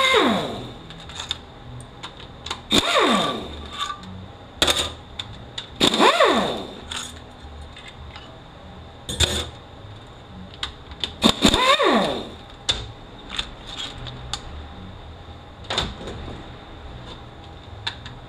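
Handheld power driver spinning bolts out of a GM 6T70 transaxle case in short bursts, four times, each a whine that falls in pitch as it lets off. Sharp metallic clicks in between, as bolts and the tool are set down.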